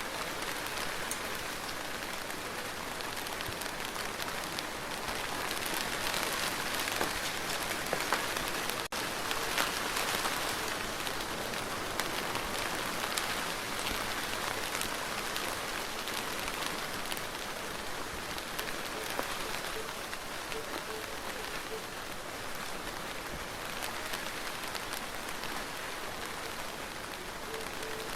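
Steady rain falling: an even hiss of rain with individual drops ticking through it, broken by a momentary gap about nine seconds in.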